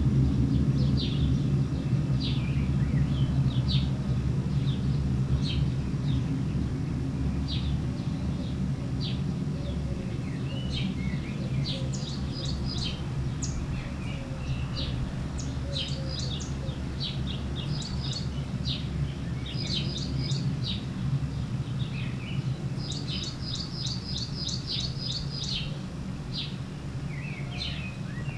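Small birds chirping and twittering repeatedly, busier in the second half with quick runs of notes, over a steady low rumble that eases slightly.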